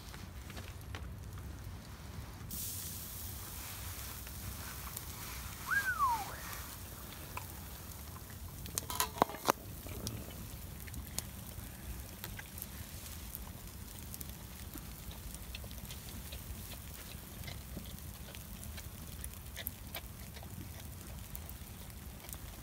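Open wood campfire crackling with scattered small pops over a low steady rumble. About six seconds in comes one short falling whistle, and about nine seconds in a quick cluster of metallic clinks and knocks.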